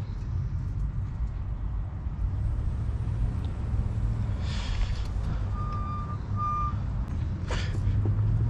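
Steady low hum with two brief hissing noises, and two short electronic beeps at the same pitch about six seconds in.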